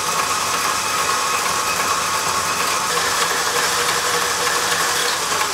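Electric stand mixer running steadily at medium speed, its paddle attachment beating thick, refrigerated pastry cream back to smoothness.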